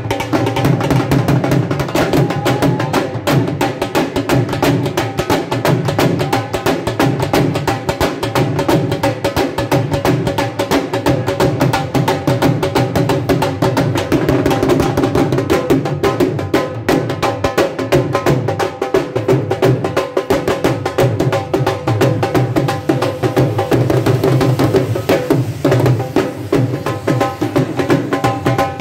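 Dhol drum beaten in a fast, unbroken rhythm, with steady held musical tones over the drumming.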